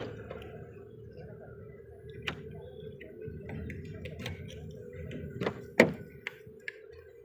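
Door lock and latch of a first-generation Maruti Baleno being worked by key and handle: a string of sharp clicks and knocks, the loudest about six seconds in as the door unlatches and swings open. A steady low hum runs underneath.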